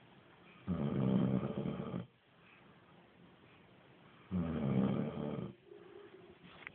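Snoring: two long snores about three and a half seconds apart, each lasting over a second, with quiet between them.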